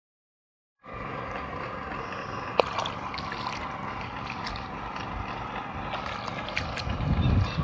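Rice transplanter running steadily in a flooded paddy, cutting in after about a second of silence, with scattered sharp clicks, the loudest about two and a half seconds in, and water sloshing. A low rumble swells near the end.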